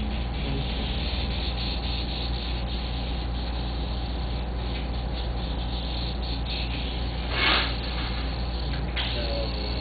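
Steady low machine hum with a constant hiss. About seven and a half seconds in comes a short loud burst of hiss, and a faint click near the end.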